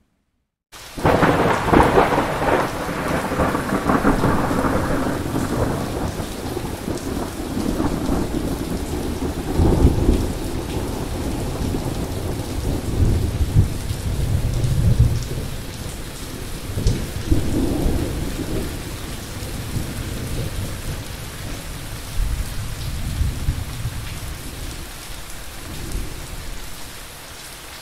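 Thunderstorm: steady rain with a loud clap of thunder coming in suddenly about a second in and rolling on for several seconds, followed by further rolls of thunder.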